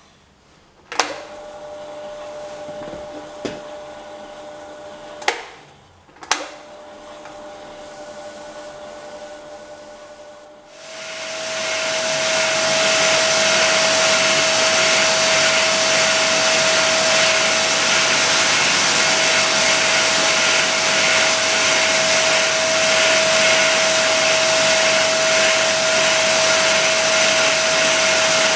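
Electric motor belt-driving a vertical lathe's steel backplate switched on with a click and running up to a steady hum, then clicked off and on again. About 11 seconds in, a loud, steady rushing noise with a high whine sets in and continues while the backplate is being faced.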